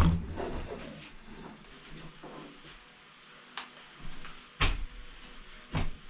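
Short knocks and clunks of a ceiling-mounted LED shop light fixture being handled and fastened overhead: a louder one right at the start, then three short ones spaced about a second apart in the second half.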